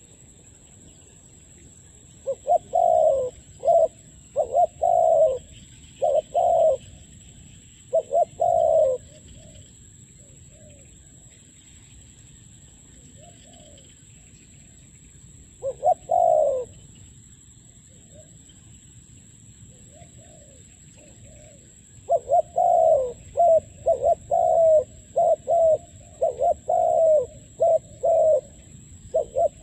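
Spotted dove cooing: bouts of short, low, repeated coos, a few seconds of them early on, one brief call in the middle, and a longer, denser run near the end.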